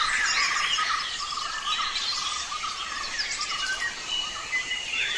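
Many birds chirping and calling in short, quick notes and glides, with a steady chirring of insects behind.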